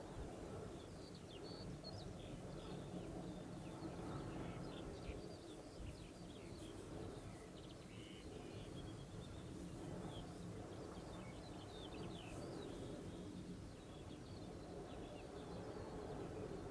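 Small birds chirping and singing in short, scattered notes over a faint, steady low outdoor rumble.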